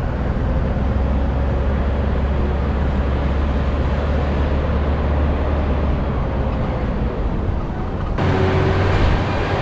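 Double-decker tourist bus driving through city streets, heard from its upper deck: a steady engine and road rumble with traffic around. About eight seconds in, the sound changes abruptly and grows brighter.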